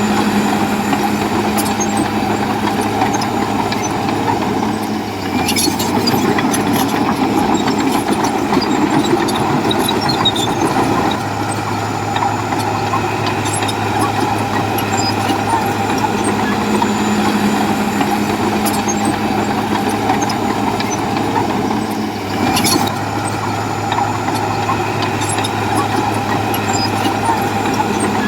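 Komatsu bulldozer's diesel engine running under load as it pushes rock and soil, with scattered metallic clanks. The engine note dips briefly about five seconds in and again a little past twenty seconds.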